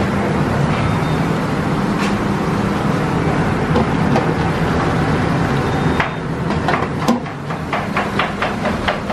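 Steady rushing roar of commercial kitchen equipment under large aluminium stockpots, with a low hum. From about six seconds in, light metal clinks and knocks as a pot lid is handled.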